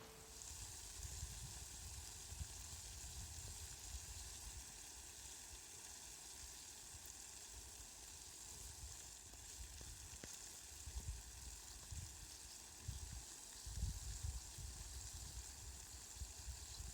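Steady rain falling, an even fine hiss, with low rumbles coming and going that grow stronger in the second half.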